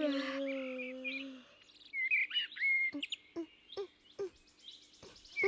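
A long, drawn-out voiced yawn, sliding slowly down in pitch and fading about a second and a half in. After that, small birds chirp in short rising and falling calls, several a second.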